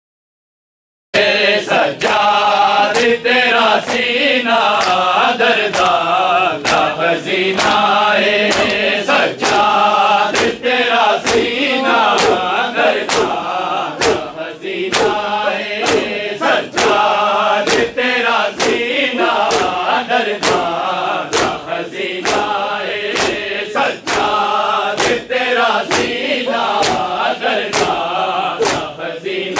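A crowd of men chanting a Muharram noha in unison while performing matam, slapping their bare chests with open hands. The slaps keep a steady beat of about three strikes every two seconds under the chanting. It starts abruptly about a second in.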